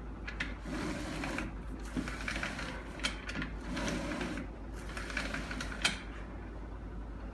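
A flat microfibre mop pad is pushed back and forth through the plastic squeeze slots of a self-cleaning mop bucket's lid, scraping and rattling the plastic in about four strokes, with a few sharp clicks.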